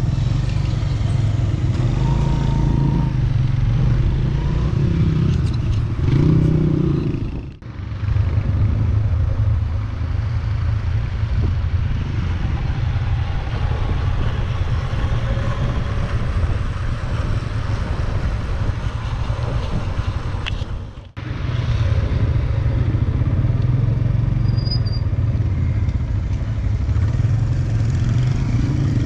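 Motorcycle engine running steadily while riding. The sound cuts out for a moment twice, about a quarter and about three-quarters of the way through.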